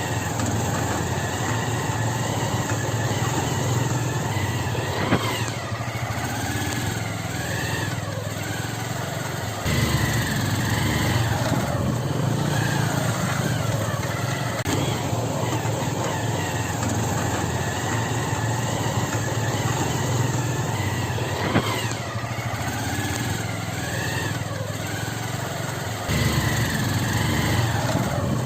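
Motorcycle engine running steadily while riding on a dirt track, with abrupt jumps in level about a third of the way in and again near the end.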